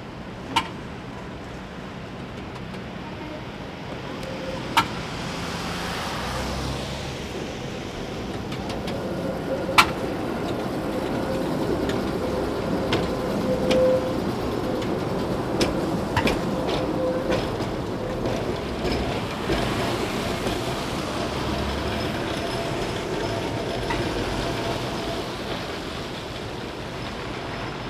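A Tatra T4SU tram running past on its rails: a rolling rumble that builds as it comes close and eases as it pulls away, with a faint steady whine in the middle and several sharp clicks.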